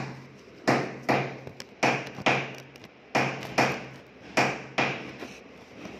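Repeated hammer blows, struck in pairs about half a second apart, with a new pair roughly every second and a quarter.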